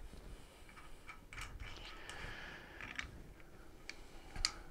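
Small clicks and light handling noises of parts being fitted by hand at a mobility scooter's tiller handlebar, with one sharper click near the end.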